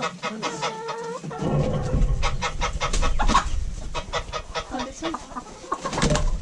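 Chickens clucking and squawking. A drawn-out wavering call ends about a second in, followed by many short clucks over a low rumble.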